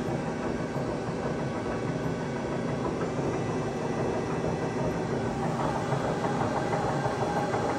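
Main spindle drive of a Sunfirm CHT 5680 oil-field CNC lathe running steadily, turning the chuck at 50 RPM in gear 2.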